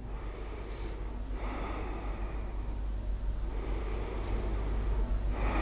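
Slow breathing through the nose during relaxation: one long breath about a second in, another starting near the end, over a low steady hum.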